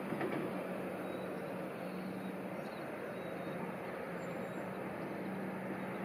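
Iyonada Monogatari diesel railcars running along the line at a distance: a steady running noise with a low, even hum.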